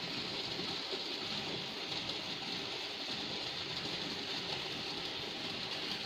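Water running steadily out of the end of a garden hose into grass: an even rushing with no breaks.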